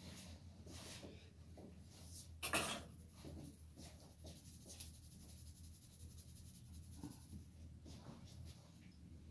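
Hands rubbing and working over hair and scalp during a head massage: faint, scratchy rubbing strokes, with one louder brief rasping stroke about two and a half seconds in.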